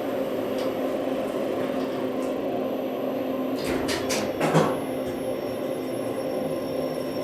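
Kone elevator car riding smoothly between floors: a steady hum, with a few sharp clicks a little under four seconds in and a thump about half a second later, around the time the car reaches the floor.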